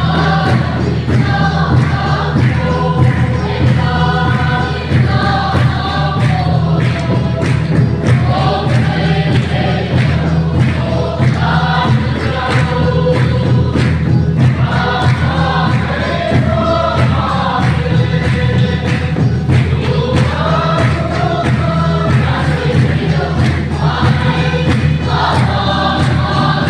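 A choir singing a gospel song in chorus over band accompaniment with a steady bass and drum beat.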